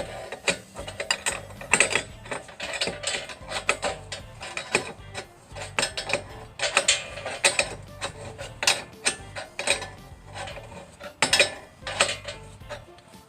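Irregular metallic clicking and clanking of a ratchet wrench being worked on the sawmill track's leveling bolts, raising a low section of the rail.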